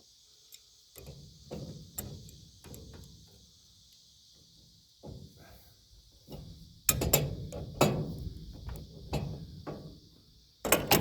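Irregular metal clanks and knocks from hand tools working on steel plow parts, with a few loud clanks about seven to eight seconds in and another sharp clank just before the end.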